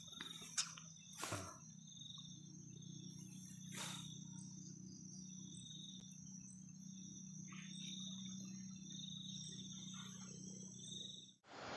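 Night insects calling: a steady high-pitched whine with a cricket chirping in short trills about once a second, over a faint low hum. A few brief rustles and knocks near the start, then the sound cuts off just before the end.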